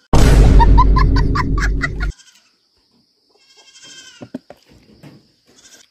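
A very loud goat bleat with a quavering pitch, lasting about two seconds and cutting off abruptly.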